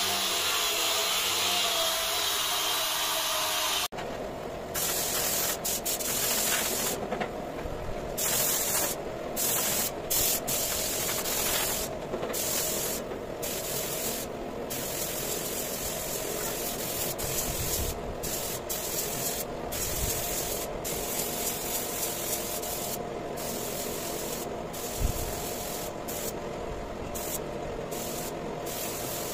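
A steady hum gives way, about four seconds in, to a compressed-air spray gun hissing as it sprays finish onto wooden tabletops. The hiss starts and stops over and over as the trigger is pulled and released.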